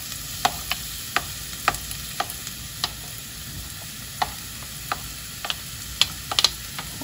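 Diced onion sizzling in hot oil in a frying pan, with irregular sharp taps and scrapes of a wooden spoon pushing the onion off a plate into the pan, several in quick succession near the end.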